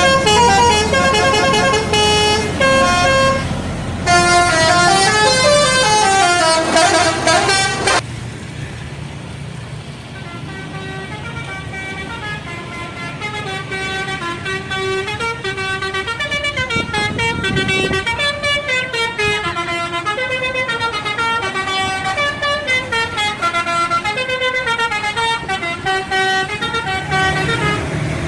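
Indonesian bus telolet horns, multi-trumpet air horns, playing fast melodic note patterns. They are loud at first and cut off suddenly about eight seconds in. Then another telolet horn plays its tune more softly and grows louder toward the end.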